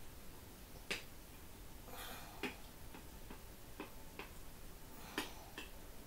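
A spoon knocking and clicking against a bowl of melting chocolate and butter as it is stirred: a handful of light, irregularly spaced taps, a few of them ringing briefly.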